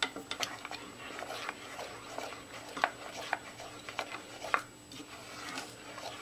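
A spoon stirring thick cornmeal porridge in a stainless steel saucepan, with irregular soft pops and clicks from the thick, bubbling porridge and the spoon against the pan.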